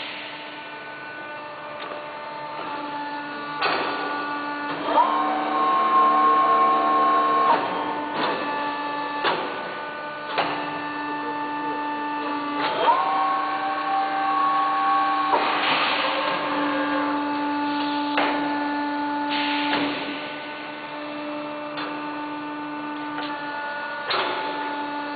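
Macri Provar 5-90 UD CNC tube bender running a bend cycle on two tubes at once: a steady motor whine that twice steps up in pitch and holds for a couple of seconds during the bend moves, with clicks and knocks from the machine between moves.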